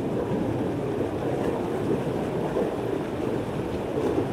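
Fast-flowing river current rushing steadily over its bed.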